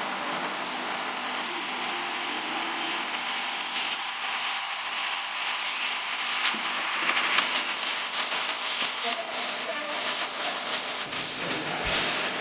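Steady hiss of pressurised gas escaping during air-conditioner refrigerant work, with a few faint ticks and rattles partway through and near the end.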